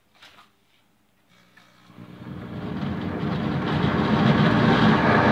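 Pampered Chef Deluxe Cooking Blender's motor starting up about a second and a half in and building steadily to a loud, even churning hum as its blade slowly turns the apples during the heated jam cycle.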